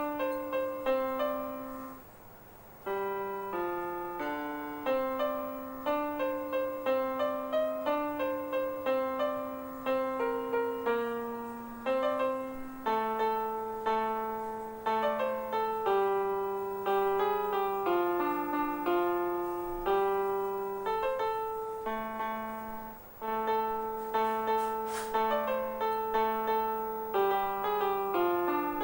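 Background music: a solo piano melody over a simple bass line, notes struck and left to decay.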